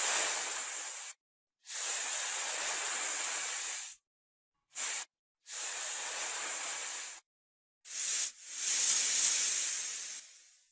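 Snake hissing in a series of separate breaths: about six hisses, one very short, the last one long and fading away, with dead silence between them.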